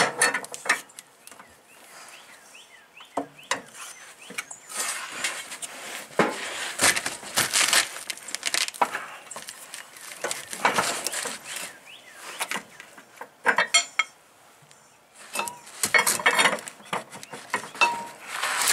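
Irregular metal clinks and scrapes of a wrench and steel mower blade against the blade spindle nut and the underside of the mower deck as the blade is held in place and the nut is turned, with rustling between the clinks.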